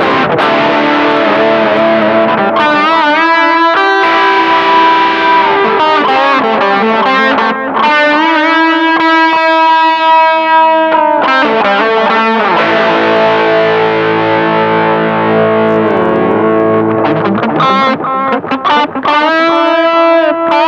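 Distorted electric guitar played through a Pedaltank Time Capsule 2 analog delay pedal, its echoes repeating behind the playing. Held notes bend and waver with vibrato between busier runs.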